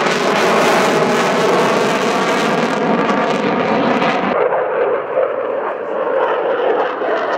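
Dassault Rafale's twin M88 turbofans in afterburner, a loud steady jet roar during a display manoeuvre. About four seconds in, the sound abruptly loses its highest and lowest parts and turns duller.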